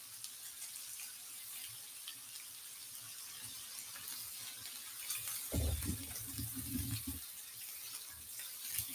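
Pork belly slices sizzling on a hot electric grill pan: a steady hiss with faint crackles. A short, low-pitched sound comes a little past the middle.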